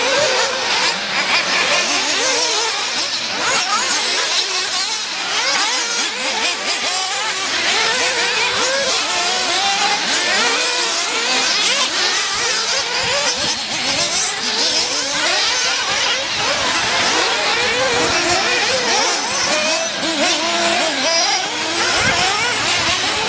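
Several 1/8-scale nitro RC buggies' small two-stroke glow engines revving at once, high-pitched, their pitch rising and falling as they accelerate and back off, the engines overlapping without a break.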